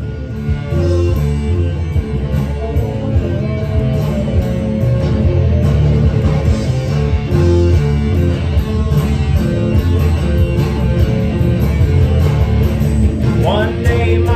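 Electric guitar playing an instrumental break of a rock song, with dense sustained chords over a steady low end.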